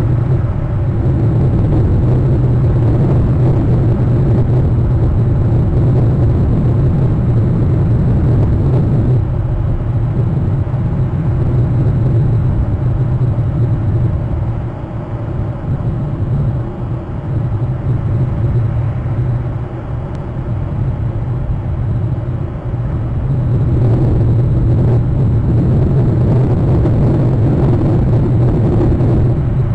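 A steady low rumble that eases off for several seconds in the middle, then comes back up.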